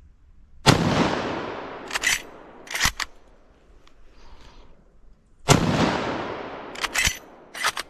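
Two shots from an Arisaka Type 99 short rifle in 7.7x58mm, about five seconds apart, each echoing and dying away over about a second. After each shot come two or three sharp metallic clacks as the bolt is worked to chamber the next round.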